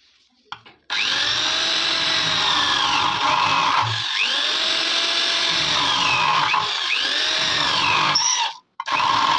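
Handheld electric power tool running against a metal AKM magazine, its motor pitch dipping and recovering repeatedly as it is pressed to the metal. It starts about a second in, stops shortly after eight seconds, and runs again in a short burst near the end.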